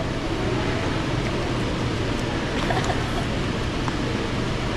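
Steady fast-food restaurant background noise: an even wash of sound with a low hum underneath and no single distinct event.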